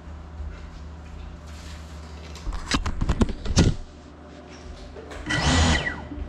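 Small FPV quadcopter flipping itself upright in turtle mode: its motors spin in short bursts and the propellers slap against the tile floor in a quick run of clattering knocks. A second short whirring burst follows near the end.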